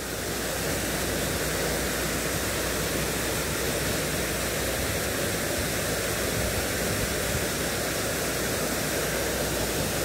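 Waterfall pouring steadily into a pool: an even, unbroken rush of falling water.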